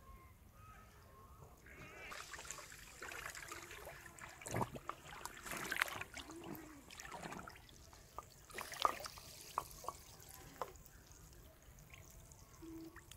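Water sloshing, trickling and splashing in irregular bursts as a person wades waist-deep and works in the river, with a few sharp clicks and small knocks among the splashes.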